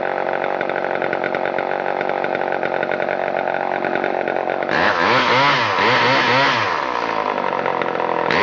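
Late-1960s Homelite EZ Automatic chainsaw's 2.3 cubic inch (37.6 cc) two-stroke engine running at a steady speed, then from about halfway revved up and down several times in quick blips.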